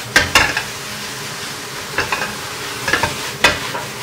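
French beans with minced pork and soybean paste sizzling as they are stir-fried in a wok, a spatula scraping through them with a few sharp knocks against the pan. Oil hisses steadily underneath, with a fish deep-frying in a second wok.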